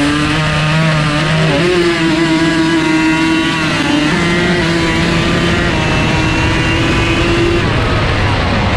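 Drag-racing ATV engine heard from on board, launching and running wide open down the strip, its note held high with short dips at the gear changes. Near the end the engine note falls away as the rider backs off the throttle, leaving rough engine and wind noise.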